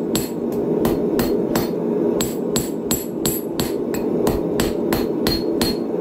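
Hand hammer striking red-hot steel on an anvil in a steady rhythm of about three blows a second, each blow a sharp metallic strike with a short ring. A steady rushing noise runs underneath.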